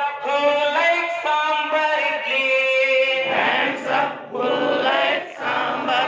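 A group of adult men and women singing an action rhyme together in unison, in short phrases with brief breaks between them.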